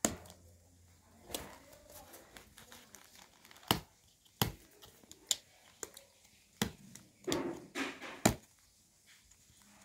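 A small cardboard product box being opened by hand: irregular sharp clicks and taps as the flaps and lid are worked, with some crinkling and tearing, the loudest click a little before the end.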